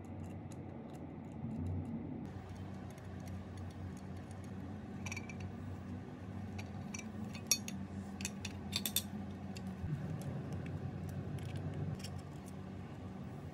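Scattered small metallic clicks and clinks of a screwdriver and metal saw-housing parts being handled during reassembly, most of them around the middle, over a steady low hum.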